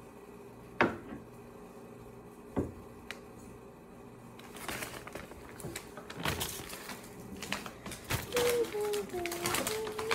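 Small plastic toy parts clicking and rattling as they are worked by hand: a few separate sharp clicks, then a dense run of clicking from about halfway through.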